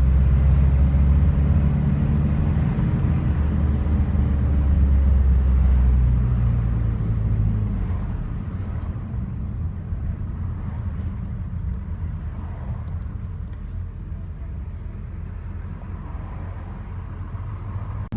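Ataman city bus driving, heard from inside the cabin: a loud low engine drone that fades about eight seconds in, leaving quieter, even road and running noise.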